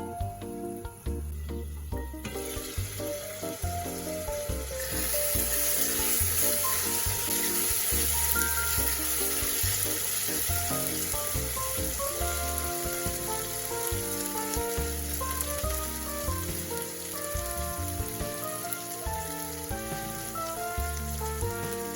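Food sizzling in hot oil in a pan, the hiss growing much stronger about five seconds in, over background music.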